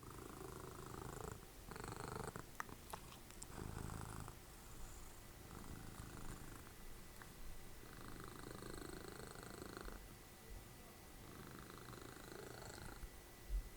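Domestic cat purring close up, the purr swelling and easing in long cycles with each breath, with a few faint clicks.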